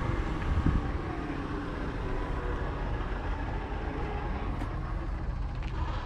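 Steady outdoor background noise, mostly a low rumble, with no single clear source standing out.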